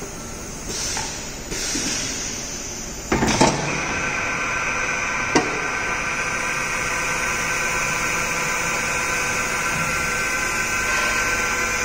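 Kitamura Mycenter 2 CNC vertical machining centre running: two short rushes of noise, then a loud clunk about three seconds in, after which the machine settles into a steady high whine of several held tones, with one sharp click a couple of seconds later.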